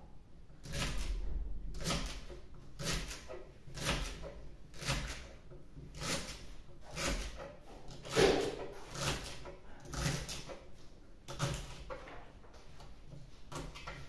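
Kitchen knife cutting celery stalks into small pieces on a cutting board: a run of short, crisp cuts, unevenly spaced at about one to two a second, the loudest about eight seconds in.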